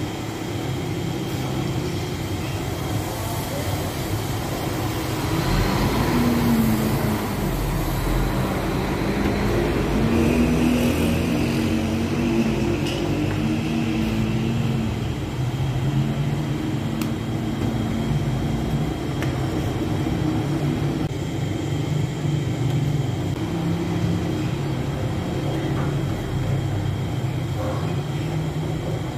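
Steady low rumble of bakery machinery, with a faint wavering hum partway through.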